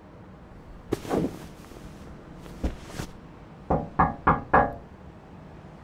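Four quick knocks on a door, evenly spaced and ringing briefly, preceded by a click and a couple of lighter thuds.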